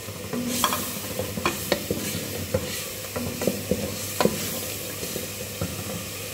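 A wooden spoon stirring ground spices into tomato masala frying in a metal pot, knocking and scraping against the pot's sides over a soft sizzle. The knocks come thickest in the first four seconds or so, then thin out.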